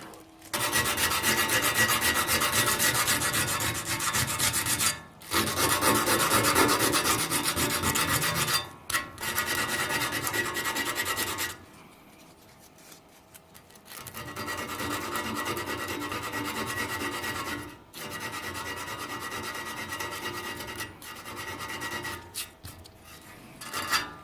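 Hand abrasive scrubbing on a steel motorcycle frame tube, taking the paint back to bare metal to prepare it for welding. It comes as rapid back-and-forth rasping strokes in runs of a few seconds, with short breaks and one longer pause about halfway through.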